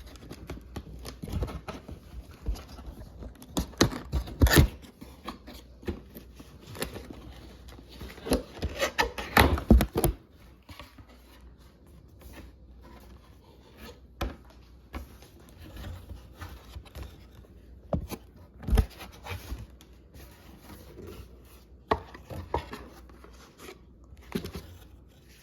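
A cardboard box being opened and its packaging handled: irregular knocks, scrapes and tearing, busy for the first ten seconds or so, then scattered taps and rustles.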